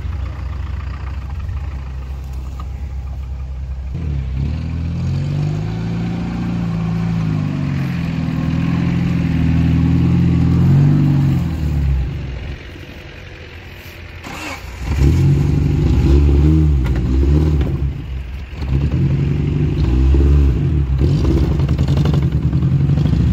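Off-road 4x4's engine revving up and down repeatedly as it works over rough ground. The engine settles back for a couple of seconds about halfway through, then revs hard again.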